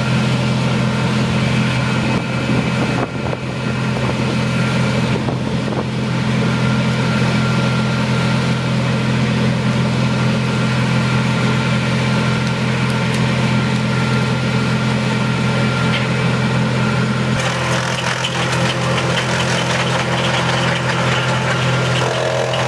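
A large engine idling steadily, a low even hum that holds the same speed throughout. From about seventeen seconds in, a higher rattly hiss joins it.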